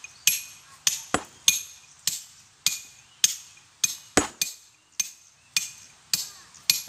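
Hammer blows on stone during manual stone splitting: a steady run of sharp strikes about every half second or so, each with a short metallic ring.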